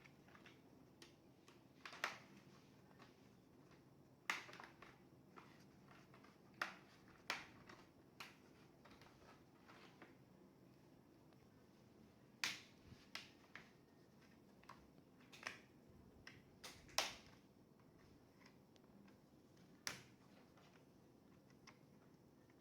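Scattered sharp clicks and light taps, about a dozen at irregular intervals with quiet between them, from hands handling a laptop and small parts.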